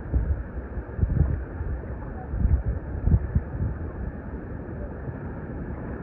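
Wind buffeting the phone's microphone in several low gusts, strongest in the first half, over a steady rushing background.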